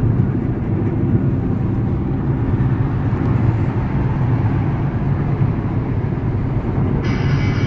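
Steady low road and engine rumble heard inside a moving car's cabin. Music comes in near the end.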